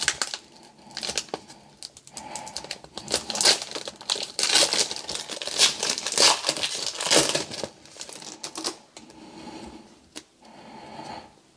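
Plastic wrapper of a Panini Court Kings trading card pack being torn open and crinkled by hand, a dense irregular crackle that dies down to fainter rustling over the last few seconds.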